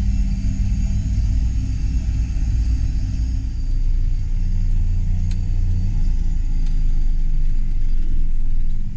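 Large farm vehicle's diesel engine running steadily, a low rumble that grows a little louder about halfway through and eases off at the very end.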